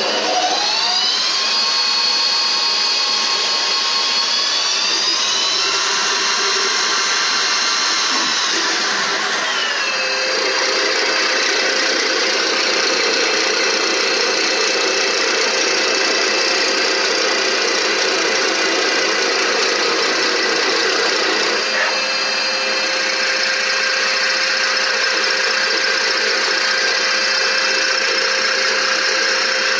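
CNC lathe spindle whining as it spins up after cycle start, turning a length of brass bar stock in the chuck. The whine steps up in pitch about five seconds in, drops back around ten seconds, then runs steadily with the machine's hum through the rest of the cycle.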